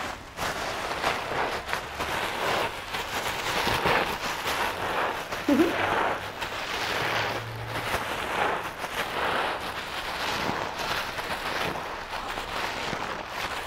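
Black plastic garbage bags crinkling and rustling without a break as a frozen dry-ice comet mixture is squeezed and pressed into a ball inside them.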